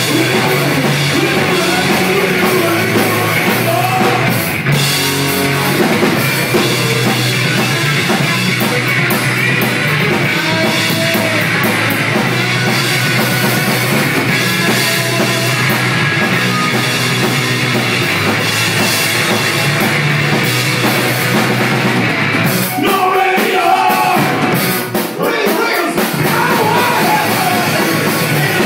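Rock band playing live: electric guitars, bass guitar and drum kit with a sung lead vocal at times. The deepest notes drop away for about three seconds near the end.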